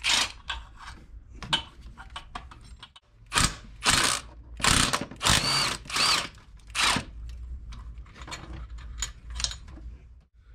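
Milwaukee Fuel cordless power tool spinning in short bursts, about eight of them, some with a high whine, as it runs out the 12 mm throttle body fasteners. Lighter clicking follows near the end.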